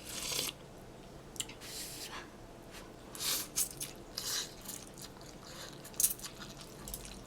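A person eating vegan pho close to the microphone: several short bursts of eating noise and chewing, with a few sharp clicks in between.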